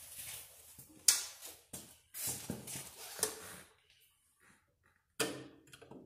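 Hands working at the spark plug and its lead on a Craftsman 12.5 HP I/C Gold lawn tractor engine, with the engine stopped: a sharp click about a second in, then rustling and scraping, and a short metallic clink that rings briefly near the end.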